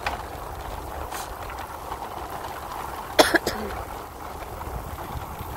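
Steady low rumble of wind and vehicle noise while moving along a road. A brief sharp noise comes about three seconds in.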